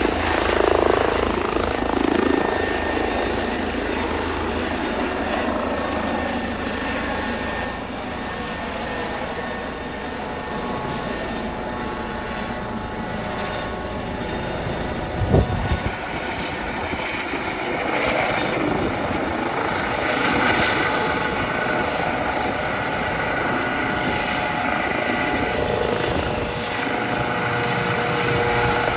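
Airbus H135 rescue helicopter lifting off and climbing away, its turbines and rotor running steadily at take-off power. A single brief knock about halfway through.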